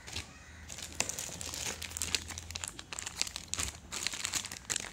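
Clear plastic packaging bag around a coiled cable crinkling as it is handled: a rapid, irregular crackle, quieter for about the first second.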